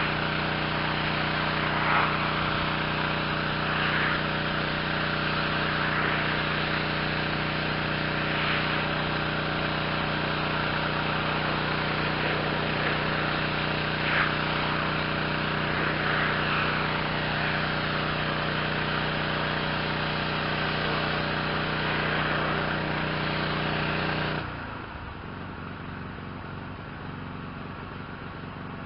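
Yamaha PW 4040 gas pressure washer running under load, its 357 cc Yamaha MZ360 engine droning steadily while the 4000 PSI spray hisses and swells as the wand sweeps across a surface. About 24 seconds in the spray noise drops away and the engine keeps running more quietly.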